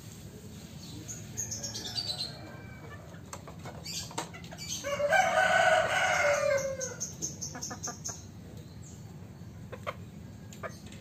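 Chickens: wing flapping and scattered knocks as a white hen is handled out of a bamboo cage. A brief high call comes about a second in, and a loud drawn-out chicken call of about two seconds comes midway.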